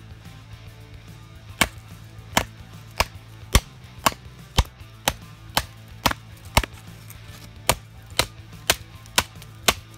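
Prototype D2-steel bushcraft knife chopping into the end of a wooden batten on a stump: about fifteen sharp chops, roughly two a second, with a short pause about seven seconds in.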